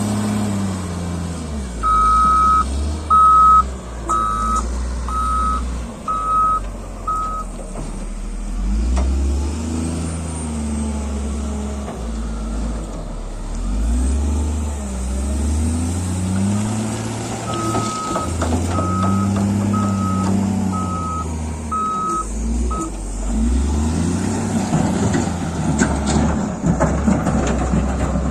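Heavy construction machine's diesel engine revving up and down as it works, with its reversing alarm beeping in two runs of about six beeps each. The first run of beeps is the loudest sound. The engine gets rougher and noisier near the end.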